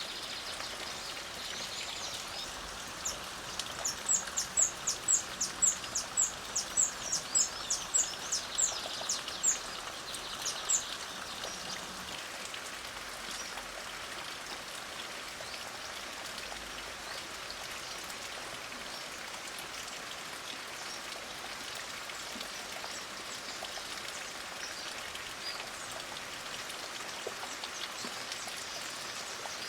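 Light rain falling steadily as an even hiss, with a bird singing a run of about twenty high, sharp repeated notes, roughly two or three a second, from about three to eleven seconds in. A few fainter bird calls come near the end.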